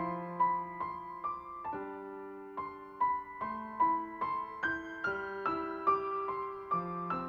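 Background music: a gentle piano melody, single notes struck one after another, a few each second, each ringing on under the next.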